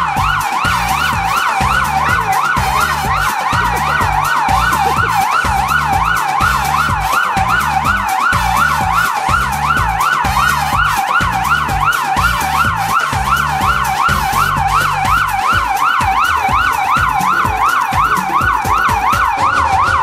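Emergency-vehicle siren sounding a rapid, continuous up-and-down yelp. Under it runs a rhythmic low beat.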